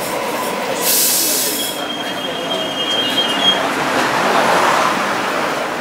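A Hong Kong Light Rail car rolls past close by with a steady rumble. About a second in there is a burst of hiss, followed by a thin high wheel squeal lasting about two seconds.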